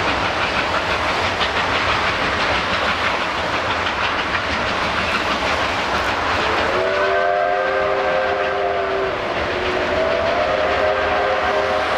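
Passenger carriages rolling along an elevated concrete rail viaduct with a steady rumble and clickety-clack. About six and a half seconds in, a multi-note train whistle sounds in a long blast, breaks off briefly, and sounds again through to the end.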